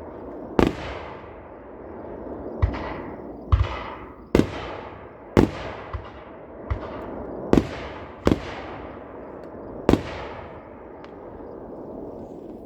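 Aerial fireworks exploding: about nine sharp booms, irregularly spaced over ten seconds, each trailing off in a long rolling rumble.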